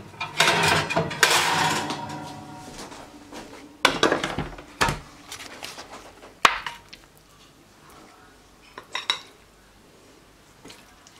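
A metal oven rack scrapes and rings as it slides out with a glass baking dish on it. Then come a few sharp knocks and clinks as the dish and the plates are handled and set down.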